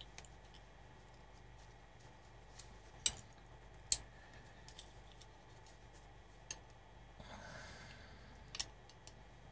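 Small plastic clicks and snaps as a pointed metal tool prises open the housing of a small rocker switch. Two sharp clicks come a little under a second apart, then fainter clicks and a short scrape.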